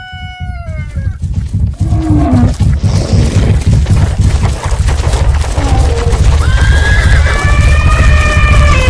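Animal stampede sound effect: a dense low rumble of many pounding hooves that builds over the first couple of seconds and stays loud. A neighing call comes in about six and a half seconds in. A rooster's crow trails off in the first second.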